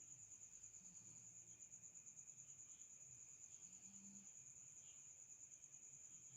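Near silence with a faint, continuous high-pitched trill, like an insect's, running without a break.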